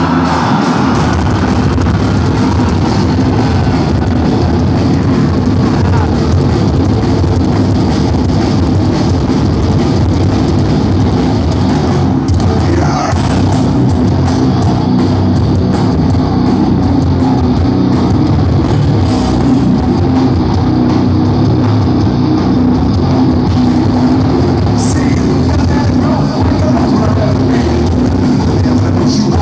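Rock band playing live and loud, with distorted electric guitars and a drum kit.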